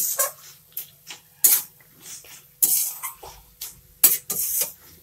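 Spatula scraping and knocking against a metal kadai as cooked cabbage is stirred and pressed, in irregular strokes with a few longer scrapes.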